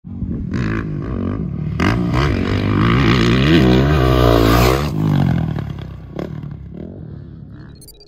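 Motocross dirt bike engine revving hard, its pitch rising and falling with the throttle, loudest in the middle and then fading away over the last few seconds.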